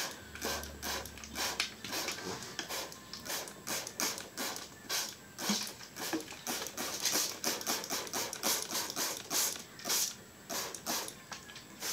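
Handheld plastic trigger spray bottle of water squeezed over and over, each pump a short click with a hiss of spray onto the wet painted canvas.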